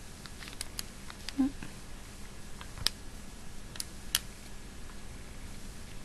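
Faint, scattered small clicks and taps from handling a nail polish bottle cap and brush while polish is brushed onto a fingernail, over a steady faint hiss.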